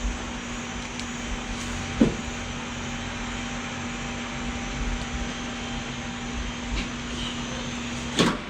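Steady machine hum with a sharp knock about two seconds in; near the end the hum cuts off with a louder knock.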